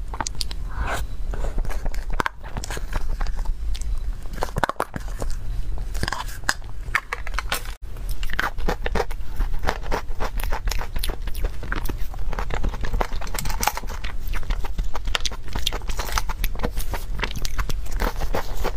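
Close-up eating sounds: a person biting and chewing spoonfuls of whipped-cream cake, many small mouth clicks and smacks in quick succession.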